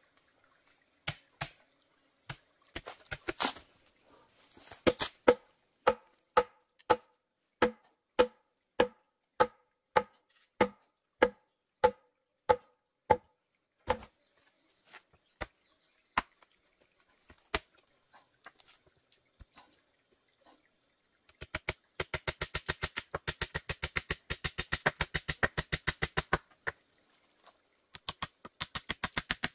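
Hollow bamboo being struck again and again, about two sharp, ringing knocks a second for the first half. After a quieter stretch come fast runs of quick knife strokes on bamboo, several a second, as a bamboo peg is cut.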